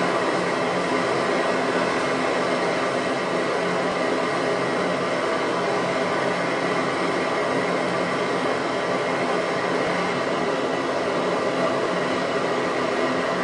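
Cartridge gas blowtorch burning with a steady, even hiss while its flame heats a small brass boiler for silver soldering.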